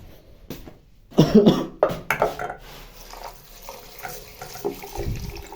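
A person coughs a few times about a second in. Then a kitchen tap runs steadily into a sink to rinse rice.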